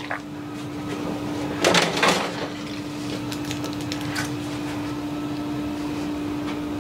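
Water running and splashing in a kitchen sink as hands are rinsed, with a louder splash about two seconds in, over a steady low hum.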